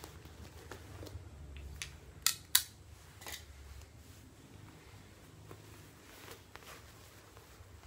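Handling noise of hats being changed close to the microphone: soft rustles and scattered clicks, with two sharp loud clicks close together about two and a half seconds in, over a faint low hum.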